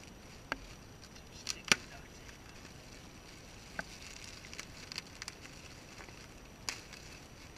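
Clear plastic bag with air-pillow packing being handled and opened by hand: scattered sharp crinkles and clicks of the plastic, the loudest about a second and a half in.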